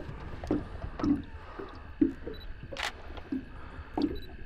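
Wet squelching, dripping and small knocks as a large barramundi is handled in a boat, with a short hiss about three seconds in.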